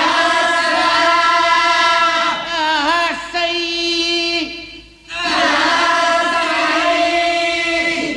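A solo voice chanting in long held notes with wavering, ornamented turns, in two phrases split by a short breath about five seconds in.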